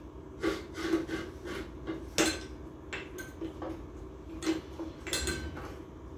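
Irregular metal clicks and clanks from a homemade pipe press being set up and worked over an A750F clutch drum, to press down the clutch piston assembly. The sharpest knock comes about two seconds in.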